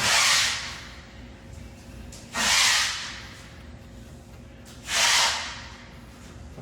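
Three short bursts of hissing, evenly spaced about two and a half seconds apart, each sharp at the start and fading within about half a second.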